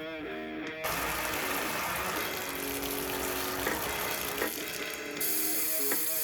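Water and air rushing out of an open faucet as trapped air is purged from the household pipes after the water heater is refilled. It starts about a second in and gets brighter and hissier near the end, with guitar music underneath.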